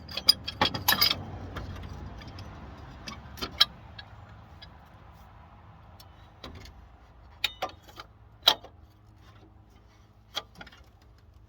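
Metal hand tools clinking and clicking against the water pump pulley bolts of a Ford F-150 engine as they are loosened with an 11 mm wrench: a quick cluster of sharp clinks about a second in, then single clicks every second or two.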